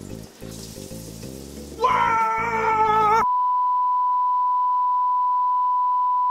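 Background music, then a man cries out in pain, having burned his fingers in hot frying oil. The cry cuts off abruptly into a steady 1 kHz television test-card tone that holds at one pitch.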